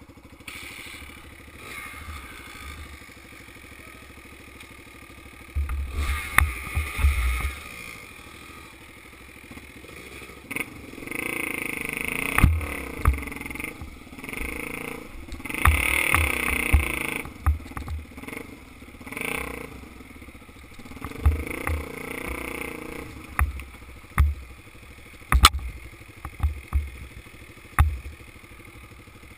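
Dirt bike engine running on a rough trail, revving up and easing off several times, with sharp knocks and low thumps from the bumps.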